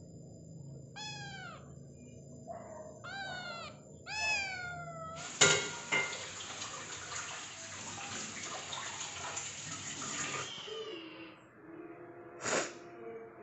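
Tabby kitten meowing three times, thin high calls that fall in pitch. Then a sudden knock and about five seconds of steady rushing hiss that stops abruptly, with a short sharp sound near the end.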